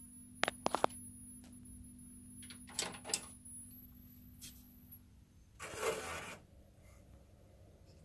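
Thermaltake 500 W computer power supply giving off a steady, very high-pitched hissing tone that steps up in pitch twice partway through and drops back near the end. This is the sign that the power supply is very likely failing. Scattered light clicks and knocks and a brief burst of noise about six seconds in are heard over it.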